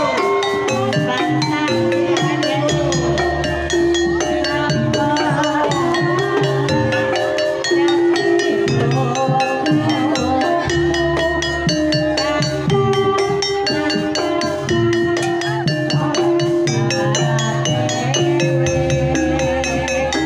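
Banyumasan tayub gending played live: a sinden sings through a microphone over a gamelan-style ensemble of mallet-struck instruments and a hand-played kendang drum. The strikes keep a steady, even pulse.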